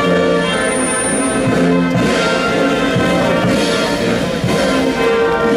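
Military brass band playing, with trombones and trumpets holding sustained chords that change every half second or so.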